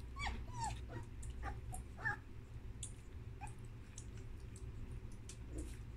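Three-week-old German Shepherd puppies giving short high squeaks that bend up and down in pitch, a few in the first second and a louder one about two seconds in, among small scattered clicks as they lap at the milk.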